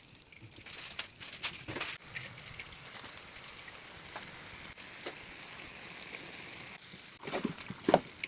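Food sizzling as it fries in a large wok, a steady hiss broken by several sharp knocks, the loudest near the end.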